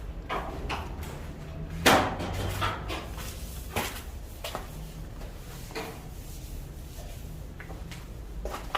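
Scattered knocks and clatter of renovation work, irregular and a few seconds apart, the loudest about two seconds in, over a steady low hum.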